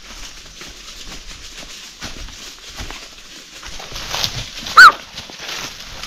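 Scattered light patter of steps on rough ground, and about five seconds in one short, sharp, high-pitched call, the loudest sound here.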